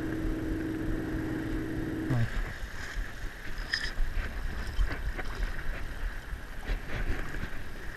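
Low wind rumble and water noise around a wader in shallow saltwater, with faint scattered ticks and rustles as fly line is stripped by hand. A steady hum stops about two seconds in.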